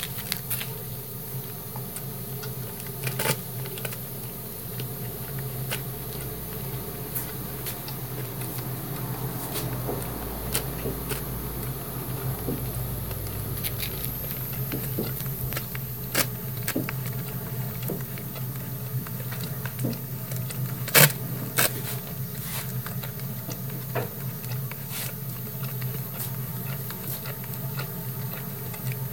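A dog gnawing on a plastic bottle: scattered small crackles and clicks of the plastic, with two sharper cracks a little after the middle, over a steady low hum.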